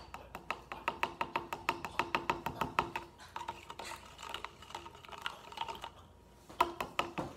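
A teaspoon stirring borax solution in a cup and clicking against its sides, about eight quick clicks a second at first, then slower and sparser, with a few louder knocks near the end.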